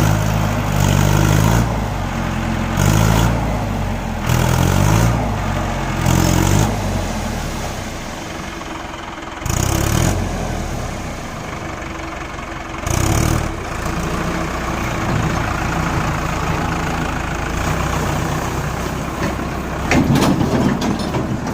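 Tractor diesel engine running and revving in repeated surges for the first several seconds, with two shorter surges later, then running more steadily.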